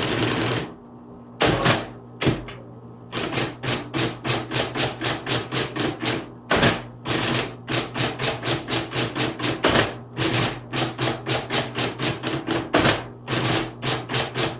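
1970s Smith Corona Coronet Automatic 12 electric typewriter typing: a rapid machine-gun run of an auto-repeating key ends just after the start. After a few single strikes, the typebars strike steadily at about four a second, with the electric motor humming underneath.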